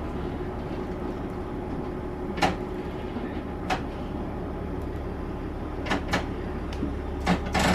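Diesel railcar coasting slowly into a station, with a steady low rumble and scattered sharp clicks and knocks, about six of them.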